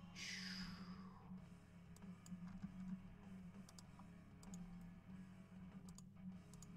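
Faint computer mouse and keyboard clicks, a few scattered taps, over a low steady hum, with a short falling swoosh at the start.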